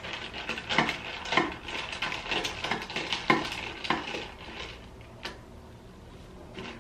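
A long bar spoon stirring ice cubes in a tall glass of sparkling rose ade: quick clinks of ice and spoon against the glass over the fizz of the soda. The stirring stops about four and a half seconds in, and a single clink follows twice as the spoon is lifted out.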